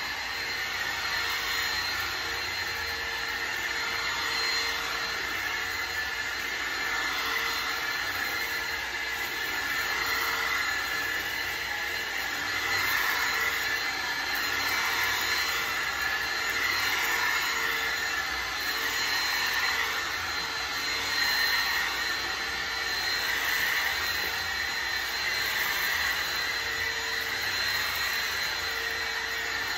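Bissell ReadyClean 10.8 V cordless stick vacuum running steadily on a shaggy rug, a motor whine over a rush of suction. It swells and eases slightly every couple of seconds as the vacuum is pushed back and forth.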